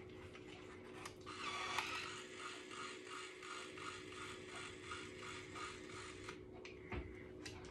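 Babyliss Lasting Waves hair styler running, its motor drawing a section of hair into the chamber with a faint, even ticking about three times a second. It stops about six seconds in, followed by a few light clicks.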